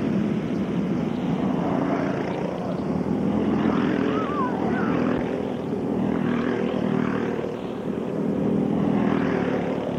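Small 5 hp single-cylinder go-kart engines buzzing steadily as the karts race around a dirt oval, one kart passing close about four seconds in.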